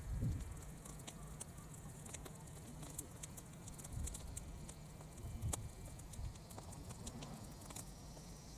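Burning pile of sun-dried weeds crackling, with scattered sharp pops and ticks, over a low rumble of wind on the microphone.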